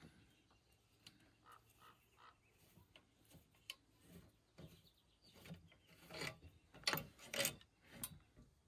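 Metal clicks, taps and scraping from hands working at a bolt on a chainsaw mill's bar-clamp bracket, faint at first, with a run of louder clicks about six seconds in.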